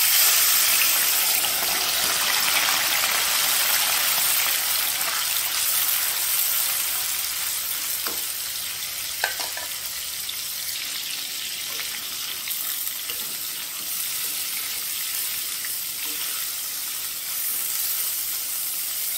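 Thin slices of soy-marinated beef frying in hot oil in a wok: a loud, steady sizzle that eases a little as it goes on. A couple of sharp clicks from the spatula stirring the meat come about eight and nine seconds in.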